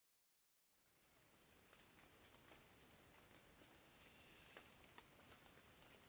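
Faint, steady high-pitched drone of an insect chorus, fading in about a second in, with a few faint ticks.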